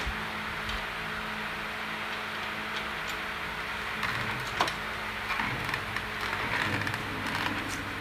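A steady low hum, with a knock at the start and a few light clicks and rattles from about four seconds in, as hands work the motorcycle's rear wheel and axle hardware.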